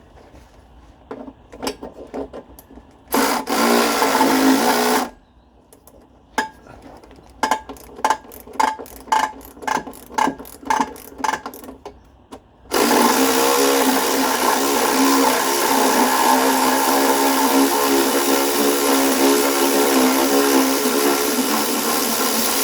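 Power tool running on the exhaust back box bolts: a two-second run, then a string of short blips, then a long steady run with its motor note wavering under load.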